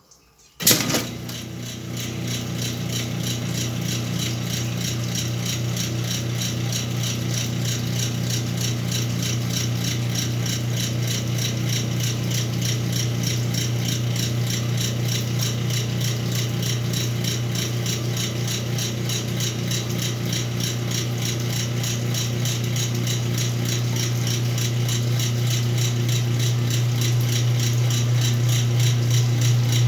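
Whirlpool washing machine starting up with a sudden clunk about a second in, then its motor humming steadily under a fast, continuous rattle that slowly gets louder.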